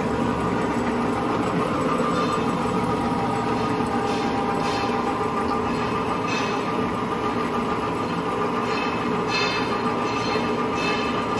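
Wellsaw 1318 horizontal bandsaw running steadily, its 3-hp motor and gear drive humming with the band blade circulating. A few faint, brief higher rattles come and go over the steady hum.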